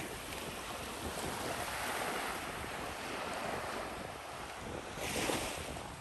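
Small waves lapping and washing up a shelly beach in a steady hiss, with one wash swelling just before the end. Wind buffets the microphone in a low rumble.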